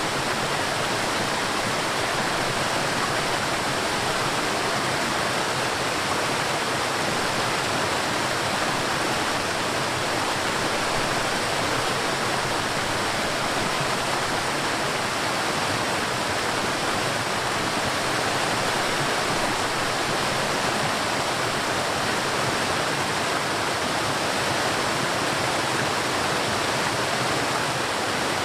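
River water rushing and flowing in a steady, even stream.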